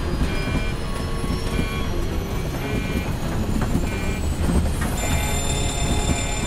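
Reconstructed jet airliner cockpit: a steady low rumble with a short electronic warning beep repeating about once a second and a thin high whine slowly rising. About five seconds in, a steady high-pitched alarm tone joins as the engine fire warning comes on.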